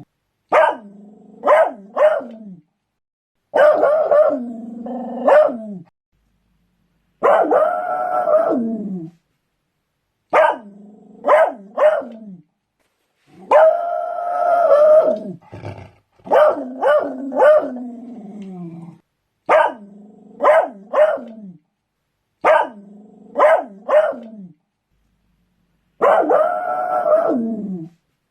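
Beagle barking and baying in bouts every few seconds. Each bout is either a drawn-out bay that falls in pitch or a quick run of two or three sharp barks, with short silent gaps between.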